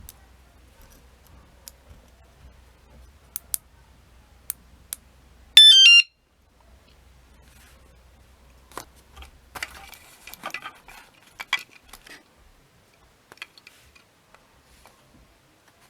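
Motorbike/bicycle anti-theft alarm giving one short, loud burst of rapidly stepping electronic tones, about half a second long and about five and a half seconds in. A few light clicks come before it, and rustling handling noise follows.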